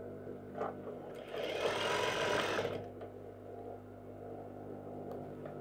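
Juki industrial sewing machine stitching in one burst of about a second and a half, over a steady low hum.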